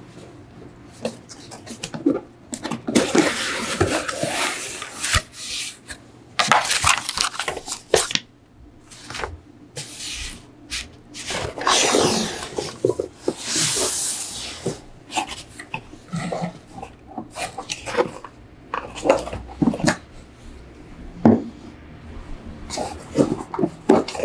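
Cardboard shipping box being opened and handled on a wooden table: the flaps rustle and scrape in several long bursts, followed by a string of short knocks and taps.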